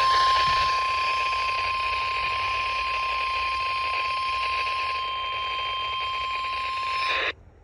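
NOAA Weather Radio 1050 Hz warning alarm tone: one steady, unbroken tone over radio hiss, lasting about seven seconds and cutting off abruptly near the end. This tone marks a warning-level alert, here a winter storm warning.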